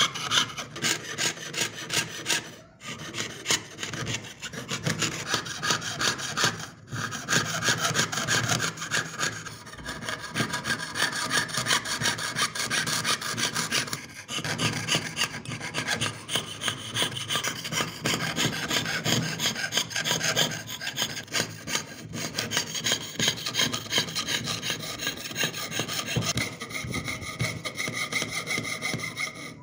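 Jeweler's saw blade cutting through thin engraved metal sheet in quick, even back-and-forth strokes, clearing out the background of a pierced design. The rasping sawing pauses briefly about 3 seconds in and again about 7 seconds in.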